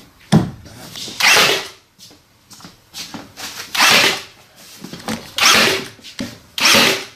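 Nail gun shooting nails into a stair tread that has been glued down: four loud shots, each with a short hiss, about a second and a half apart, after a sharp click near the start.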